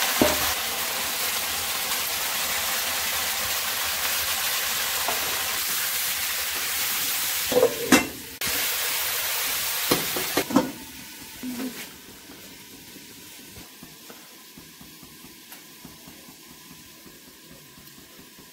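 Cauliflower florets sizzling as they fry in hot oil in a steel kadai, with a few metal clinks and scrapes of the spoon against the pan around eight and ten seconds in. After about ten and a half seconds the sizzle drops to a faint hiss.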